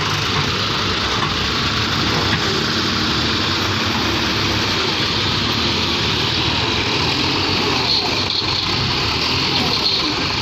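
John Deere 5310 tractor's diesel engine running steadily, with voices mixed in.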